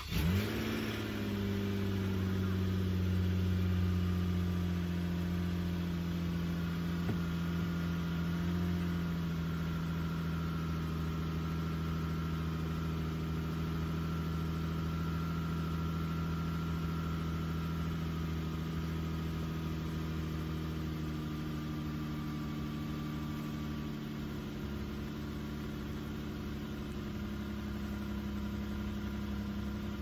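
Minivan engine starting in the cold, its revs sweeping up briefly as it catches, then idling steadily with the idle easing down a little about nine seconds in.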